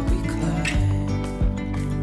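Background music with a steady beat, a low thump about every two-thirds of a second under held notes.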